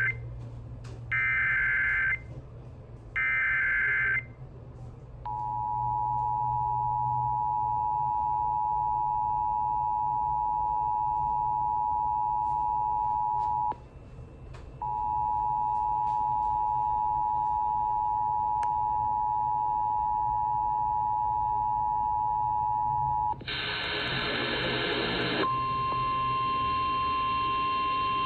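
Emergency Alert System signalling. First come the last of three screeching SAME data bursts, each about a second long. Then the two-tone EAS attention signal sounds for about eight seconds, breaks off for a second, and sounds again for about eight seconds. Near the end a harsh two-second burst is followed by a steady single-tone alert.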